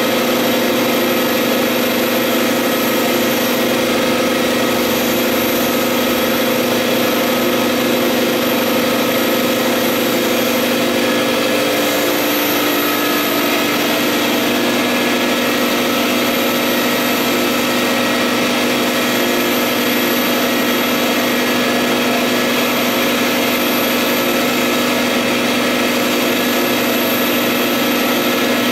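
Vutek UV-curable flatbed printer running while it prints onto a rigid sign board: a loud, steady machine hum with several constant tones.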